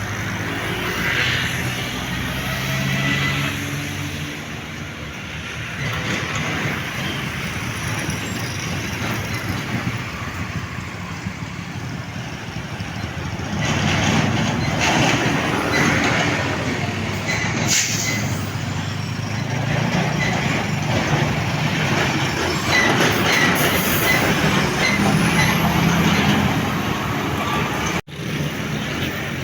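Heavy loaded truck's diesel engine running and revving at low speed, with road traffic noise and a brief sharp hiss about two-thirds of the way through.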